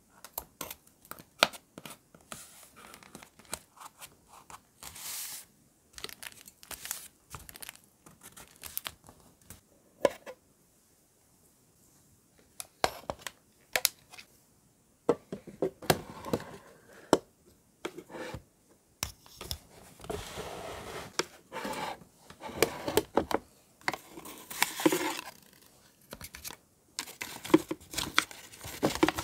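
Washi tape torn into small pieces and pressed onto a notebook page, with sharp ticks of metal tweezers and short paper rustles. After a short quiet pause partway through, the paper crinkling and handling grows denser, and near the end paper scraps are pulled from a clear plastic drawer.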